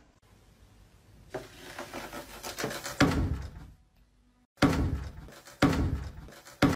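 A tube stuck over a cat's head knocking and scraping against a wall and wooden floor: several sudden knocks roughly a second apart, with rubbing in between.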